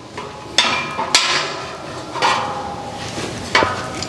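About four metal knocks and clanks, several with a short ringing tone. These come from the egg belt take-up roller and its steel shaft being handled and knocked against the metal rails of the nest frame.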